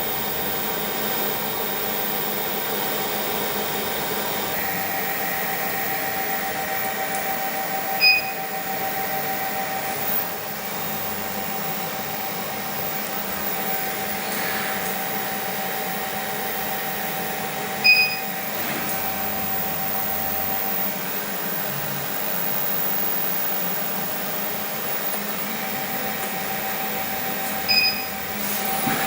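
Steady fan hum and hiss with a faint tone in it, broken by three short high electronic beeps about ten seconds apart.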